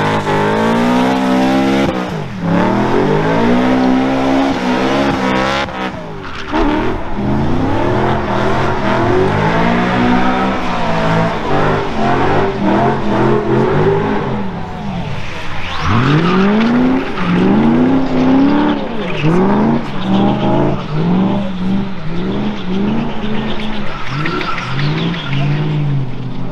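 Drift car's engine revving up and down over and over as it slides, its pitch repeatedly climbing and dropping, with tyres screeching through a burnout-style drift.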